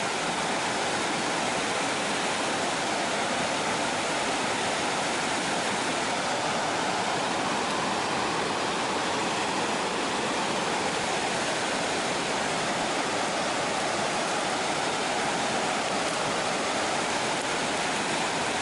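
Creek water flowing over a riffle, a steady, even rush that does not change.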